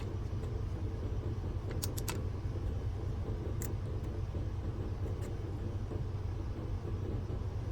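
Electric shear-sharpening machine running steadily with a low rumble while a curved grooming shear blade is worked to raise a burr, with a few light metallic clicks about two, three and a half, and five seconds in.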